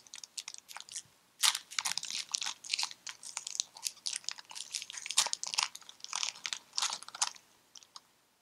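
Foil trading-card booster pack wrapper crinkling and crackling as it is opened by hand: a dense run of crackles that stops about a second before the end.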